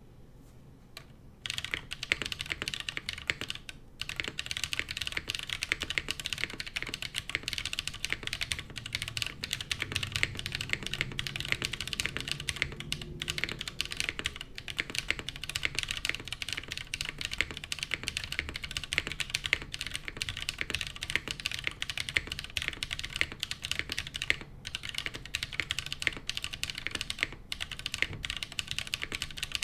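Continuous fast typing on a custom mechanical keyboard with lubed Holy Panda tactile switches, GMK keycaps and a polycarbonate plate, starting about a second and a half in, with a few brief pauses.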